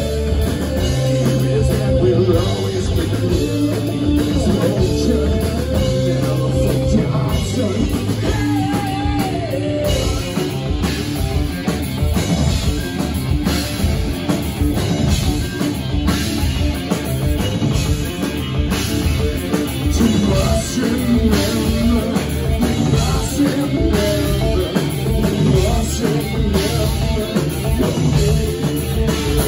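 Live rock band playing: electric guitars and a drum kit, with a singer's vocals over them.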